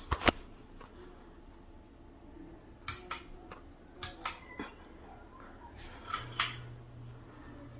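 Hunter Ridgefield II ceiling fan's pull-chain switch clicking in sharp pairs, four times, as the chain is pulled and let go. With the last pair a steady low hum starts: the fan motor switching on.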